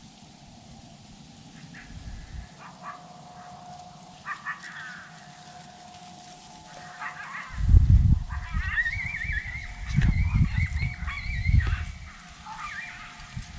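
Coyote yips and yelps, then a long wavering howl about two-thirds of the way in, with more yips near the end. Gusts of wind buffet the microphone through the middle.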